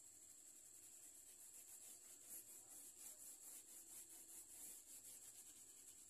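Faint coloured pencil shading on paper, quick back-and-forth strokes making a soft, rapid, even scratching.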